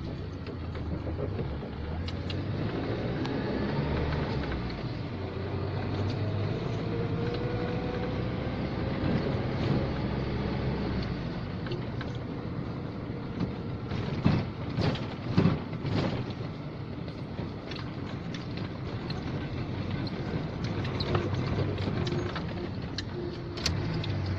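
Cabin noise of a GAZelle van driving in city traffic: steady engine and road noise, with a short cluster of sharp knocks about two-thirds of the way through.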